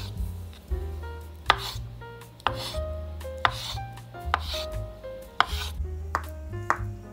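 Kitchen knife chopping food on a wooden cutting board: a sharp knock about once a second, with a short slicing hiss between strikes, over soft background music.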